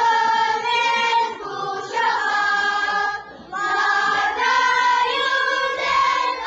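A choir of schoolchildren singing together, holding long notes on one melody, with a short break about three seconds in.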